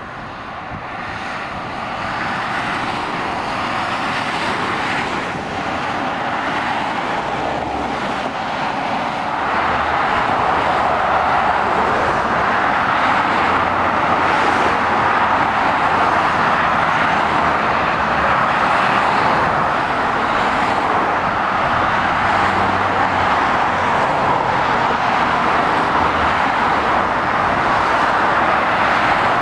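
Motorway traffic passing steadily: tyre and engine noise of lorries and cars. It grows louder over the first ten seconds or so, then holds steady.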